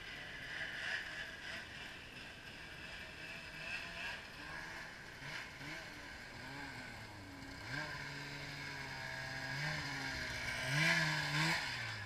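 Snowmobile engine running at low throttle, its pitch rising and falling with small blips of the throttle as a sled pulls up. It grows louder near the end.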